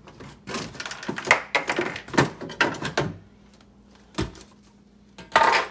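A freezer's interior cover panel being worked loose and handled after its screws are out. There are about three seconds of clattering and scraping, a single knock about four seconds in, and a short loud scrape near the end.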